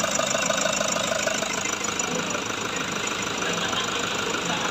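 Toyota HiAce engine idling steadily while its power steering system is being bled with fresh fluid after a new steering rack was fitted.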